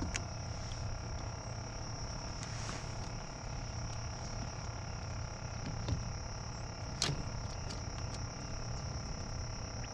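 Riverside ambience: a steady high insect drone over a low rumble, with one sharp click about seven seconds in.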